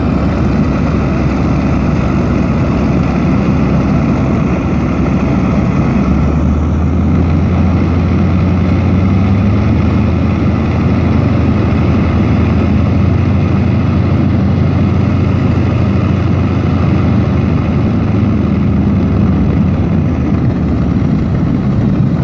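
Engine and propeller of a de Havilland Beaver floatplane heard from inside the cabin, running steadily as it descends to land on the water. About six seconds in a deeper steady drone joins and holds until near the end.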